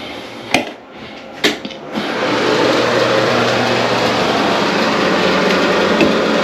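Two sharp clicks, then a bathroom exhaust fan, switched on with the light, starts about two seconds in and runs with a loud, steady whoosh and low hum.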